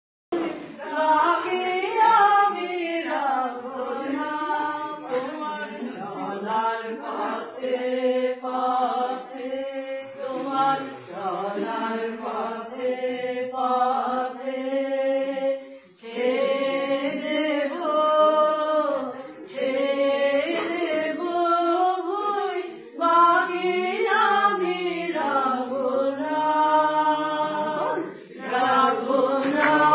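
A group of women's voices singing a song together, unaccompanied, with a short break between phrases about halfway through.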